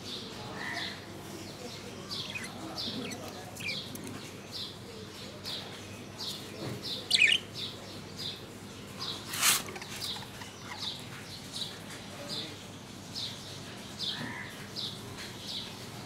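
Small birds chirping: a steady run of short, high chirps, a little more than one a second, with a louder chirp about seven seconds in and a sharp, louder click about nine and a half seconds in.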